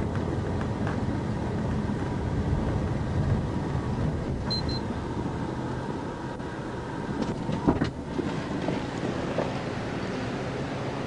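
Steady rumble of a police car's engine and road noise. Two short high beeps sound about four and a half seconds in, and a few sharp clicks come near eight seconds.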